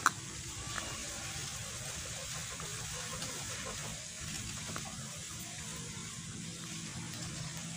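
Steady low background noise, a faint hiss over a low hum, with a sharp click right at the start.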